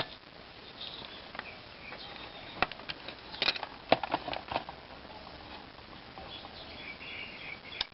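Scattered light clicks and taps of multimeter test probes being handled and put to the LED adapter's plus and minus output terminals, over a low hiss with faint chirps in the background.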